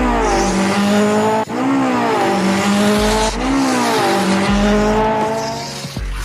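A motor revving hard over and over, its pitch dipping and then climbing to a held whine about four times, over a steady hiss, with deep thuds between the revs.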